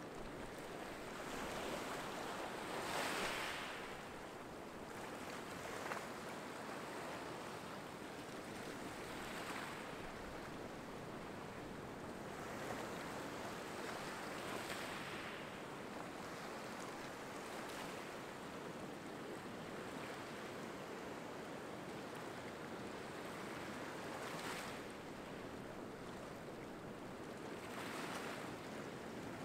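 Small waves washing up on a rocky shoreline: a steady hiss of surf, swelling every few seconds as each wave breaks and runs up the beach.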